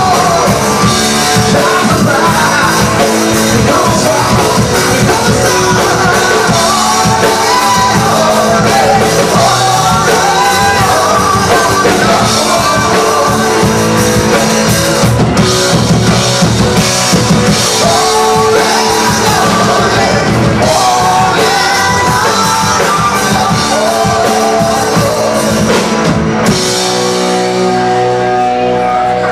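Live rock band playing loudly, with a singer, electric guitars and a full drum kit driving the beat. About three seconds before the end the drums stop and held chords ring on.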